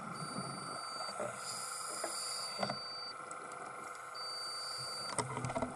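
Underwater ambience picked up through a camera housing: a steady hum with thin high tones that come and go, low rumbling, and a few sharp clicks and knocks, the loudest about two and a half seconds in and again near the end.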